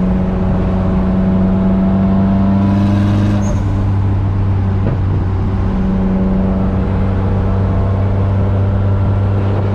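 Turbocharged KA24DE inline-four in a Nissan 240SX running steadily at highway cruise, a loud, even drone heard from inside the car, with a brief easing in its tone partway through.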